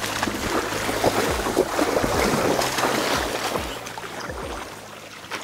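A hooked king salmon thrashing and splashing at the surface of a shallow river, over the rush of the current. The splashing eases off near the end.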